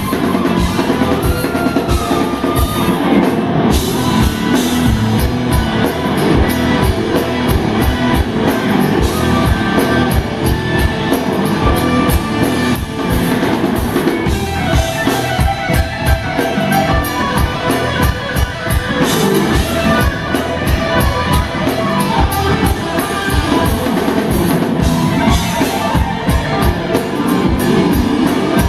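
Live instrumental rock band playing: lead electric guitar over a second electric guitar, electric bass and a drum kit, with busy drumming throughout.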